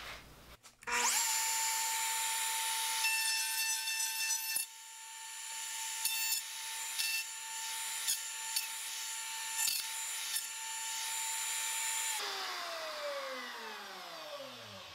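Makita compact trim router in a mini router table switched on, snapping up to speed and running with a steady high whine. Near the end it is switched off, and the whine falls steadily in pitch as the motor and bit spin down.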